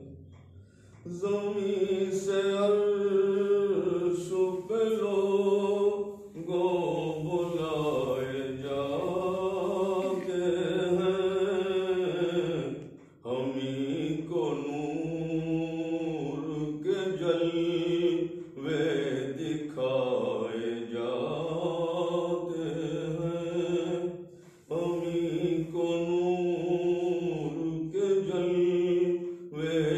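An elderly man reciting a naat, a devotional poem in praise of the Prophet, solo and unaccompanied. He chants it in long held, wavering melodic phrases, with short pauses for breath every five to seven seconds.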